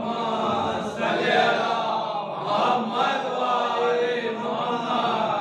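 Many men's voices chanting together in unison, a steady group recitation.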